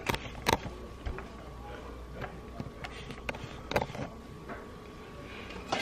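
Handling noise on a kitchen counter: a few scattered light clicks and knocks, the sharpest about half a second in, over a faint steady low hum.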